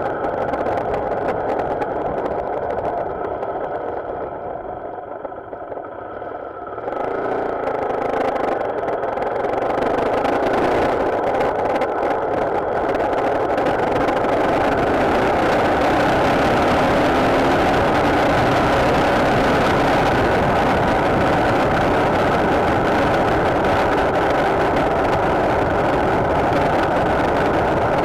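Motorcycle on the move, engine and wind noise heard from the rider's position. The sound drops off for a few seconds, picks up sharply about seven seconds in and builds as the bike gathers speed, then holds steady and loud from about halfway.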